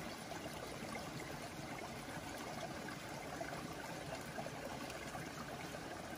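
Shallow stream flowing over gravel and stones, a quiet, steady babble.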